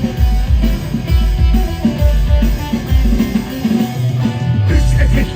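Live band playing an instrumental passage: a steady drum beat under guitar and other plucked string instruments, with no singing.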